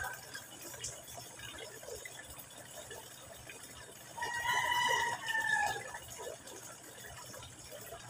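Thin stream of water from a garden hose splashing steadily into a small pond. About four seconds in, a loud drawn-out call lasting about a second and a half and dropping in pitch at its end rises above the splashing.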